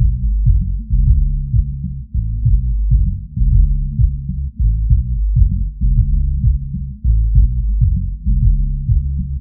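Bass-boosted, low-pass filtered music for testing subwoofers: only deep bass notes and kick-drum beats, with nothing above the low bass.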